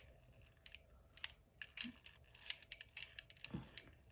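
Small balls clicking and rattling inside a handheld plastic ball-in-hole puzzle fidget toy as it is tilted, a quick irregular run of faint, sharp clicks.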